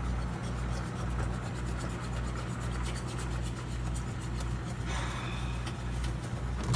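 Microwave oven running: a steady low electrical hum with a slow pulse in its lowest note, cutting off with a sharp click near the end as the timer runs out.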